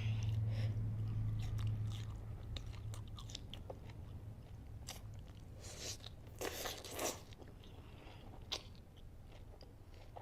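Close-up eating sounds of spicy instant noodles: scattered bites, chewing and short mouth noises, with the biggest bursts about six to seven seconds in. A low hum fades away over the first few seconds.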